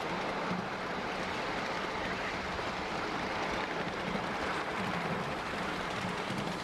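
Steady rumble and rattle of a train of empty open steel cars rolling along the track, heard from on board.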